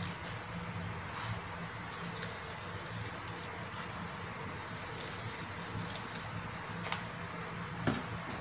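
A few light clicks and taps as a spoon and a small plastic tub and lid are handled, with seasoning shaken over fish pieces in a plastic bowl, over a low steady hum.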